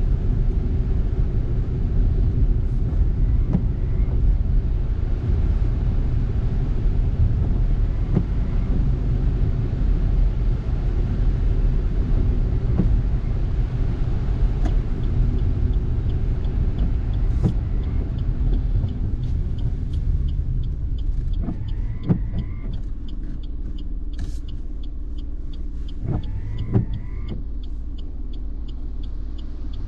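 Car driving on a wet road: steady tyre and road rumble that eases about two-thirds of the way in as the car slows. In the second half a light, regular ticking runs under it, with a few short knocks near the end.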